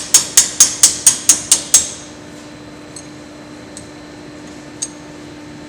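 Hammer striking steel: a quick, even run of about eight sharp, ringing blows at roughly four a second that stops about two seconds in. A faint steady hum runs underneath.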